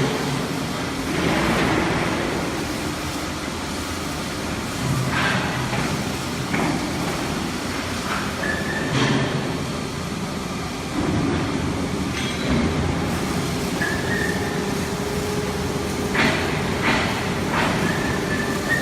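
W12 CNC plate rolling machine running, a steady heavy mechanical rumble from its rolls and drive. Scattered sharp metallic clanks and a few short high squeals of steel come from the plate working through the rolls.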